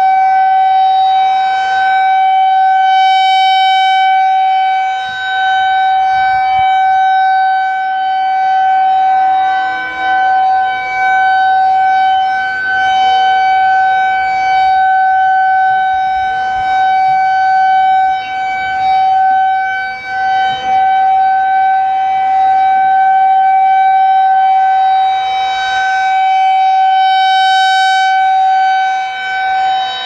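Federal Signal 2001-130 rotating outdoor warning siren sounding a steady single-pitch alert tone. Its loudness swells and dips as the horn turns toward and away.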